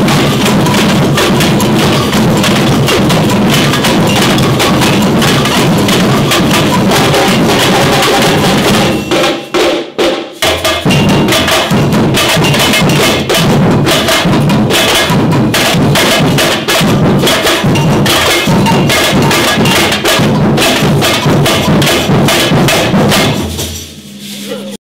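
A section of tamborims, small hand-held samba frame drums, struck with sticks in a fast, tight samba rhythm. The playing breaks off briefly about nine seconds in, picks up again a second later, and stops shortly before the end.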